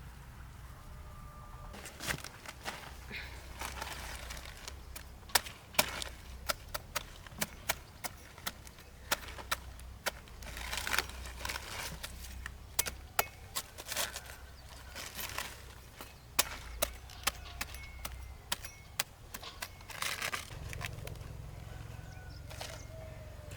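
Repeated sharp chopping knocks, irregular and a few a second, like a blade striking a wooden surface, with rustling between the strokes.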